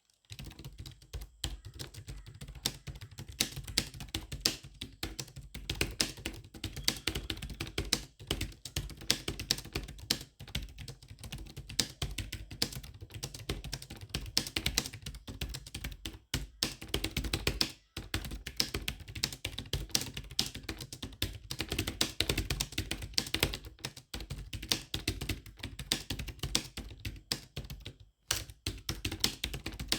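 Continuous fast typing on a Logitech K780 wireless keyboard: a steady stream of quick key clicks with brief pauses between bursts.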